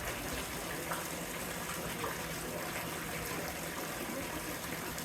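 Steady splashing of thin streams of water falling into a stone basin: the three spouts of the Otowa waterfall.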